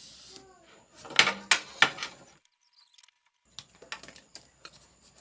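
A series of sharp knocks and clicks. Three loud ones come close together about a second in, then lighter scattered clicks follow after a brief silence.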